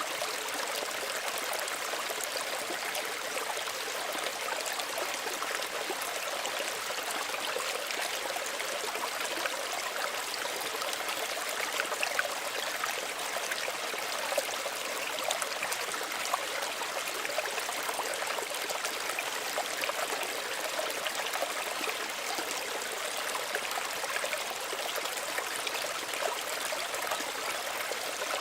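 Small stream running over stones, a steady babble with fine trickling and splashing detail.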